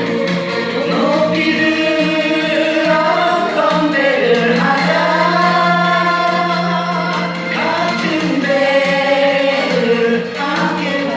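Music: a song with long held, gliding sung notes over a steady low note.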